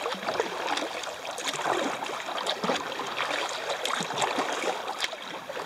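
Water splashing and dripping off a kayak paddle as it is stroked, with small waves lapping at the hull in irregular little splashes.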